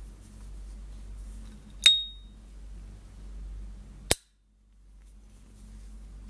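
S.T. Dupont lighter lid snapping open with its bright metallic ping, a ringing click about two seconds in, followed by a second, shorter sharp metal click about two seconds later. A faint steady low hum lies underneath.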